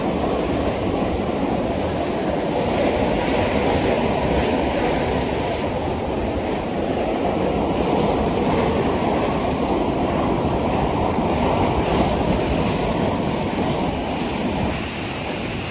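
Floodwater rushing, a loud steady roar of moving water that drops slightly in level near the end.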